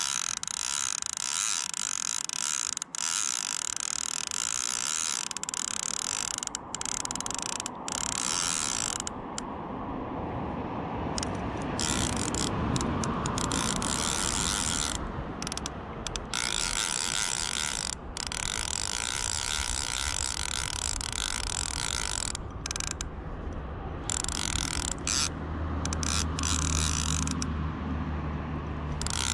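Fly reel's click-and-pawl ratchet running continuously as a hooked salmon is played on the fly rod. A low rumble comes in near the end.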